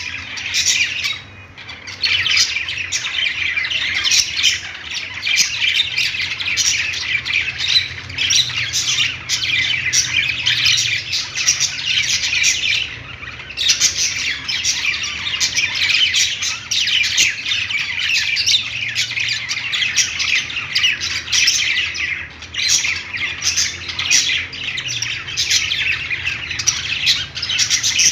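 A group of budgerigars chirping and chattering non-stop, many fast overlapping high calls, with two brief lulls: one about a second in and one around the middle.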